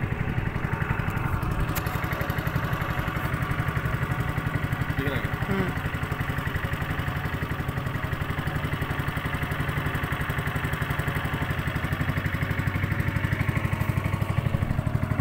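Honda GX200 single-cylinder four-stroke petrol engine driving a longtail propeller shaft, running steadily while the boat is under way.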